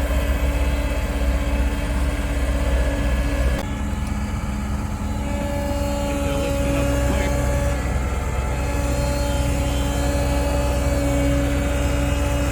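Engine running steadily with a low hum and a few held tones, which shift abruptly about three and a half seconds in.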